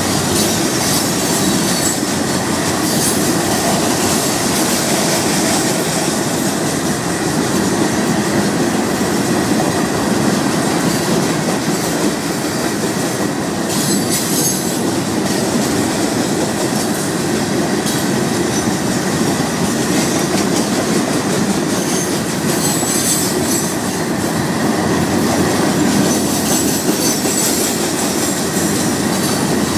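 Loaded rock hopper cars of a Florida East Coast Railway freight train rolling past, a steady roar of steel wheels on rail with now and then a high wheel squeal.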